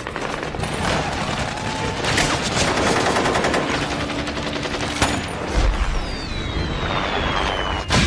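War-film battle soundtrack: dense automatic gunfire and rifle shots in rapid bursts. About halfway through a deep rumble comes in, then a falling whistle, and a blast hits right at the end.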